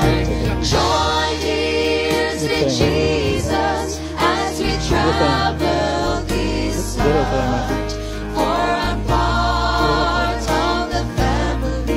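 Gospel music soundtrack: a choir singing with instrumental backing and steady bass notes.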